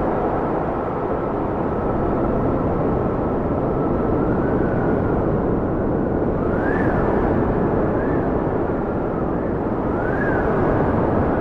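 Wild wind howling with echo: a steady, deep rush of gusting air with a thin whistling tone that swells up and dips back several times in the second half.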